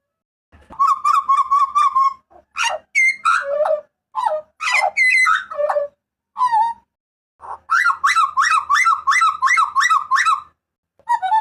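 Butcherbird (jagal papua) giving loud, ringing whistled calls in phrases: a quick run of repeated notes, then varied swooping notes, then a longer fast string of repeated notes at about four a second.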